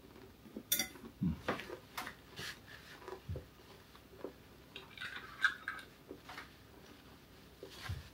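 Spoons and a sauce bottle clinking against each other and against dishes: scattered light clicks and knocks, with a short clatter about five seconds in.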